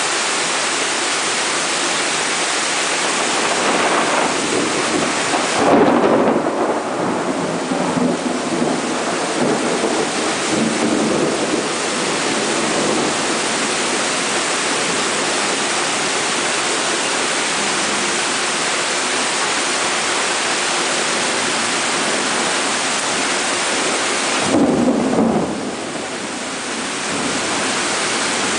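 Heavy rain pouring down steadily during a thunderstorm. Thunder rumbles loudly from about four seconds in for several seconds, and a shorter clap comes near the end.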